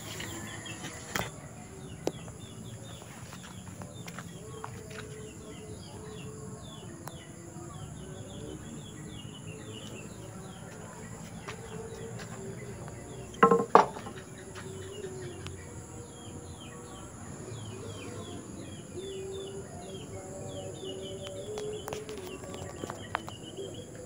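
Garden ambience: birds chirping in many short repeated calls over a steady high-pitched insect drone. About halfway through there is a brief loud knocking as the machete is lifted off its wooden stand.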